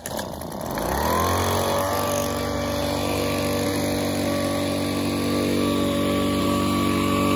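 Handheld gas leaf blower starting up: its small engine revs up over about the first second, then runs steady at full speed.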